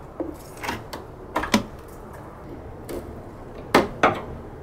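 Small screwdriver working a rusty metal radiator retaining clip free, giving several irregular sharp metallic clicks and taps, the loudest two in quick succession near the end.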